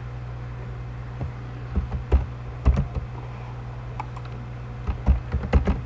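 Typing on a computer keyboard: irregular keystrokes starting about a second in, coming in quick clusters near the end, over a steady low hum.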